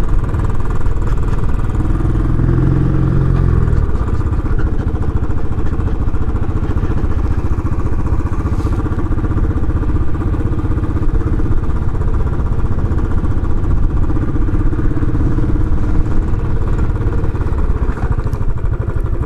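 Royal Enfield Classic 500's air-cooled single-cylinder engine running as the motorcycle is ridden. It pulls harder for a moment a couple of seconds in, then settles into a steady thump.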